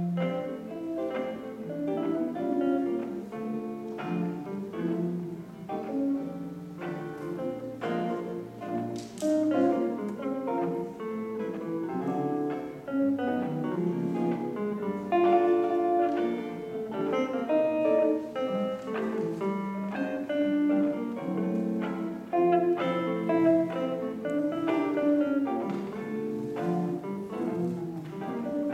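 Two amplified electric guitars, a semi-hollow-body and an archtop, playing a duet of picked single notes and chords; the music starts abruptly.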